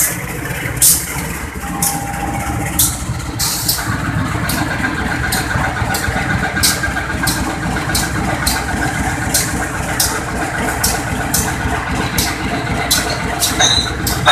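Diesel locomotive engine idling close by, a steady low rumble, with short sharp clicks about twice a second over it.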